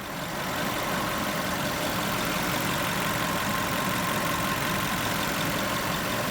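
VW Polo engine idling steadily with a spare ignition coil fitted in place of the suspect one.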